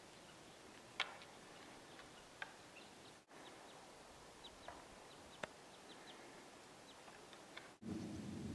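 Bull moose antlers clacking as two young bulls spar: a few sharp knocks, about a second in, again near two and a half seconds and near five and a half seconds, with fainter ticks between. A louder low rushing noise comes in near the end.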